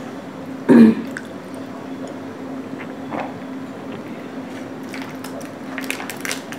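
Eating sounds: chewing and mouth sounds of soft cake, with a sip from a glass of water, over a steady low hum. A short loud vocal sound comes about a second in, and light clicks come near the end.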